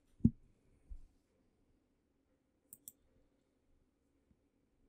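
A computer mouse double-clicking about three seconds in. Near the start there is a single low thump, the loudest sound here, and a weaker thud follows a moment later.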